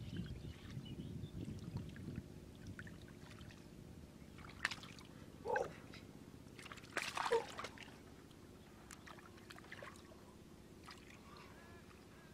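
Hands sloshing and squelching in shallow muddy water while groping for a fish in a mud hole, with a few louder moments about halfway through.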